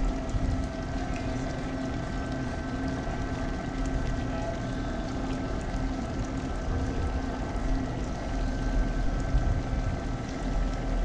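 Fishing boat's outboard motor idling steadily: a constant hum with a few steady tones over a low rumble.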